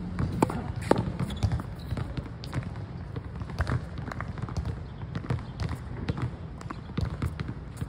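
Tennis ball struck by a racket and knocking off a concrete practice wall: two sharp hits about half a second apart near the start, then scattered fainter ball knocks and bounces, over a steady low rumble.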